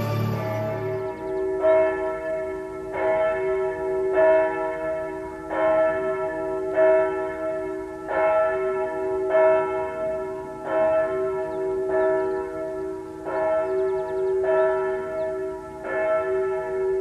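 Church bells ringing, a new strike about every second and a quarter, each stroke ringing on into the next.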